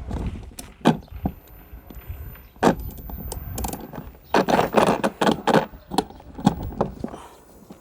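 Ring wrench working the bolt that holds a lawnmower blade, with irregular metal clicks and clinks that come thickest about four to six seconds in.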